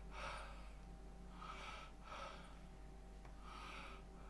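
A man breathing heavily through his open mouth: a few faint, breathy gasps spaced a second or so apart.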